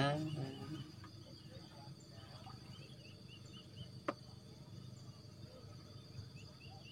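Faint outdoor ambience: a steady high insect drone with runs of short chirps at about four a second, over a low rumble, with a single sharp click about four seconds in.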